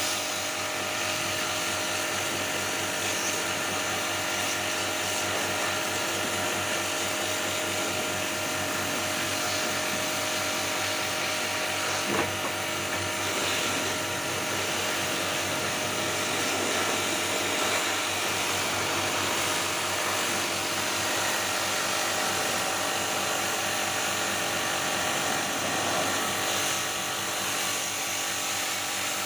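A small machine's motor running steadily, with several steady hum tones and an even level; a single sharp click about twelve seconds in.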